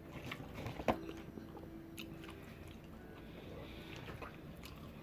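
A person chewing a mouthful of breaded spicy chicken sandwich: faint, soft mouth sounds with a couple of small clicks, the louder one about a second in.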